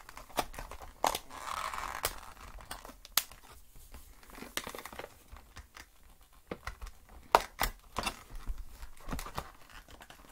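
A doll's cardboard-and-plastic display box being worked open with scissors: irregular sharp clicks and snips, with a short burst of crinkling and rustling about a second in.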